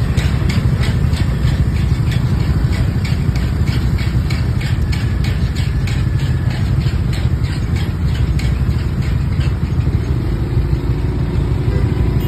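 Motor scooter and car engines idling in stopped traffic on a bridge, under a loud low rumble. A light, regular ticking of about three a second runs through most of it.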